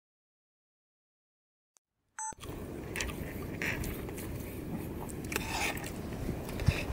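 Total silence for about two seconds, then a short electronic beep, then steady background noise with a few faint rustles and scrapes.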